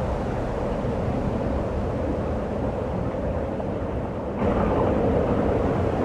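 Steady rushing wind of a snowstorm, which becomes louder and brighter abruptly about four and a half seconds in.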